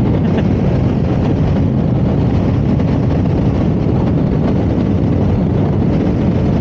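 Honda ADV 160 scooter's single-cylinder engine running steadily at road speed, mixed with wind rushing over the microphone.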